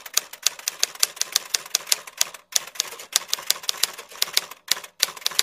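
Typewriter sound effect: rapid, irregular key clacks, several a second, with a brief break about two and a half seconds in, going with caption text being typed out letter by letter.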